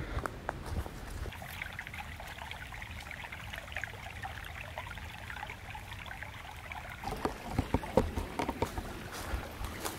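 Footsteps crunching through dry fallen leaves. They give way to a quieter stretch of faint trickling water from a small stream, then louder crunching footsteps in the leaves return about seven seconds in.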